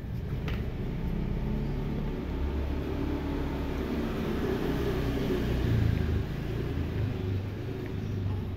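A motor scooter's engine running as it passes along the street, a low rumble that grows to its loudest about six seconds in and then fades.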